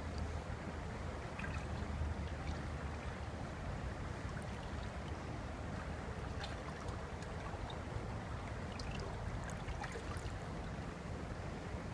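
Steady rush of water from a small river waterfall, an even noise strongest in the low range, with faint scattered high ticks of small splashes.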